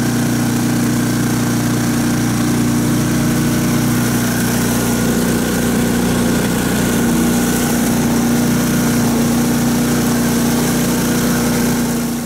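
Karakat all-terrain vehicle's engine running steadily, a constant hum that holds the same pitch throughout.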